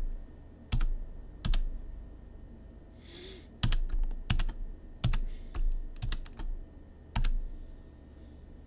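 Computer keyboard keystrokes: a long password typed slowly, one key at a time, in sharp separate clicks at uneven intervals, with a pause of a second or so about two seconds in.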